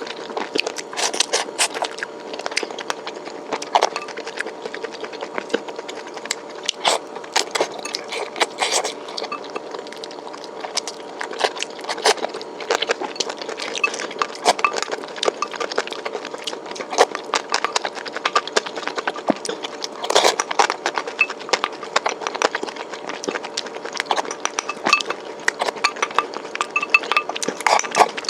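Close-miked eating sounds: chewing and crunching of food, with irregular clicks and scrapes of utensils against the dish. A faint steady hum runs underneath.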